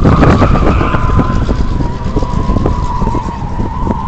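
Tires on a 1979 Pontiac Trans Am WS6 squealing in one long squeal through a hard corner, sagging slightly in pitch. Underneath, the car's 400 V8 runs under load.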